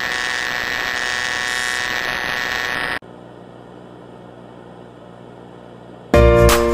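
Harsh television static hiss with a steady high-pitched whine running through it, cutting off suddenly about three seconds in to a faint low hum. Near the end, music starts abruptly and loud.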